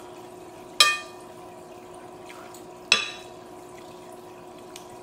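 Metal cutlery clinking twice against a ceramic dinner plate, about two seconds apart, each strike ringing briefly. A steady faint hum underneath.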